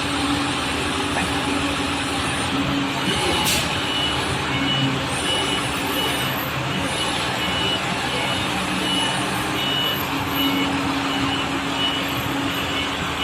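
Forklift running with its warning beeper sounding short, high beeps about twice a second from about three seconds in, over steady engine and machinery noise.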